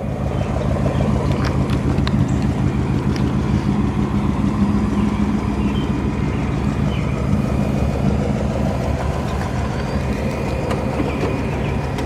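Ford Thunderbird's original 312 Y-block V8 idling steadily.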